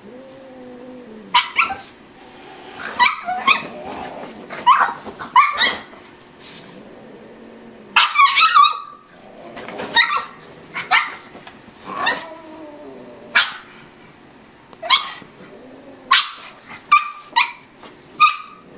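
Pug barking over and over in sharp barks at uneven intervals, some in quick pairs, with fainter low drawn-out sounds between them.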